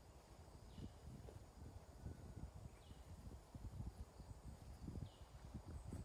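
Faint outdoor quiet with a low, uneven rumble and soft thumps, and a bird giving three short falling chirps about two seconds apart.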